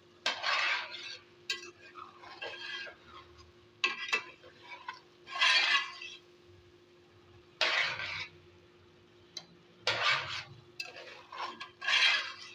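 A spoon stirring rice in a cooking pot: a series of short scraping strokes against the pot, irregular, about every one to two seconds, over a faint steady hum.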